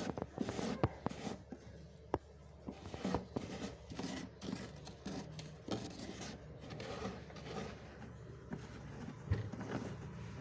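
Freezer frost crunching and scraping in many short, irregular strokes, with a few sharp clicks among them.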